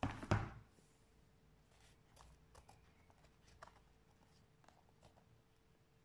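A hot glue gun set down on a board with a quick double knock, followed by faint light rustling and small clicks as a glitter foam strip is handled and pressed onto the rim of a cardboard box.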